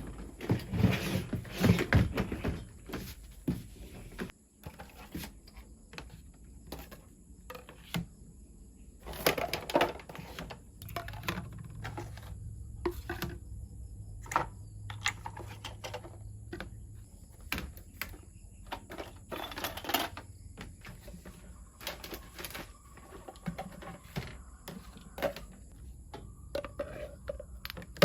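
Irregular clicks, taps and light clatter of small hard objects being handled and set down, densest in the first couple of seconds.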